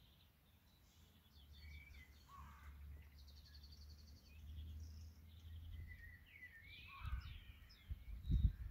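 Several small songbirds chirping and trilling in the background, with quick repeated trill notes and short rising and falling chirps. Beneath them runs a low rumble, with a few low thumps near the end.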